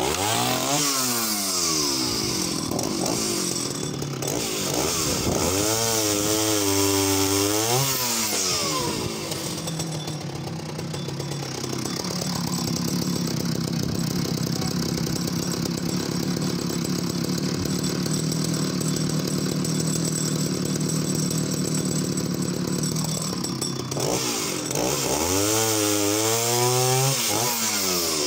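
Danarm 71SS vintage two-stroke chainsaw starting up and revving, then settling to a steady idle for about a dozen seconds. It is revved up and back down again near the end.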